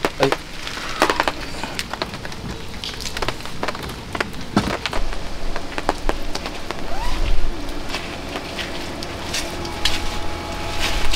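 Rain pattering on a polycotton camping tarp overhead, with irregular sharp drips over a steady hiss.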